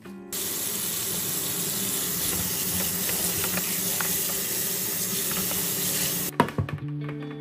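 Kitchen tap running onto romaine lettuce leaves being rinsed by hand in a plastic salad spinner basket. The water cuts off about six seconds in, followed by a few knocks.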